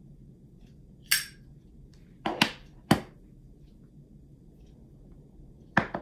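A few sharp knocks and clicks of hard objects being handled: one about a second in, a quick pair and then a single around two to three seconds in, and another quick pair near the end.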